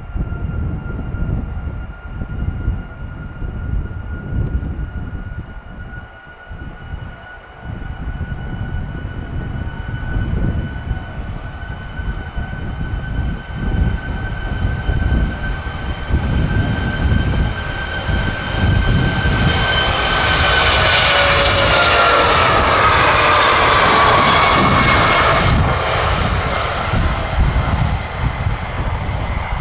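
Airbus A340-600's four Rolls-Royce Trent 500 turbofans at take-off thrust during the take-off roll: a steady high whine over a deep rumble. It grows louder as the airliner approaches and is loudest about 20 to 26 seconds in, where the whine falls in pitch as it passes.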